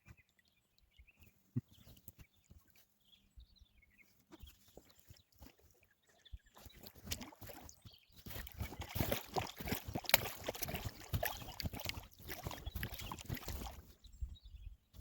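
Paddling a packraft: a dense run of paddle splashes and knocks on the boat starts about six seconds in and stops near the end.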